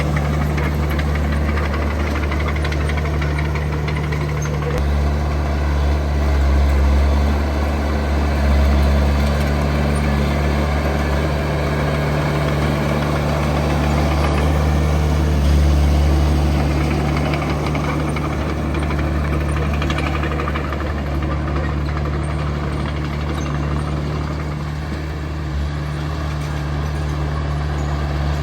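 Heavy diesel earthmoving machinery running steadily, a deep engine hum with a clattering edge that swells a few times as the engine works harder.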